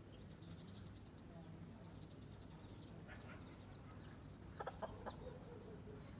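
Hen clucking: a quick run of three or four short clucks about three-quarters of the way through, with a few faint high peeps from her chicks earlier, over a low steady hum.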